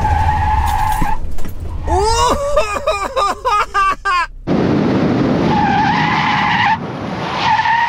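Tyres of a 1974 Toyota Celica ST squealing under hard braking, a steady high squeal for about a second; the car has no ABS, so the tyres slide until the brake is eased. Then a burst of shrieking laughter, and after a short break loud road noise with two more spells of tyre squeal.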